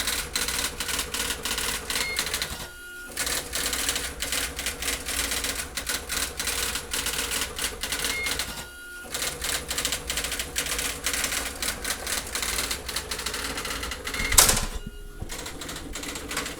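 Xerox Memorywriter 6010 daisy-wheel electronic typewriter printing automatically, with a fast, steady rattle of character strikes. The rattle breaks briefly about every six seconds, and there is one louder knock near the end.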